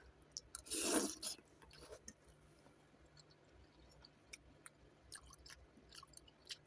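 A person chewing a mouthful of noodles with vegetables and pork close to the microphone: soft wet mouth clicks, with one louder noisy sound about a second in.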